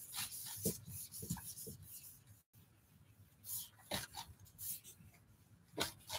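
Whiteboard eraser wiped across a dry-erase board: faint rubbing strokes in two spells with a pause around the middle.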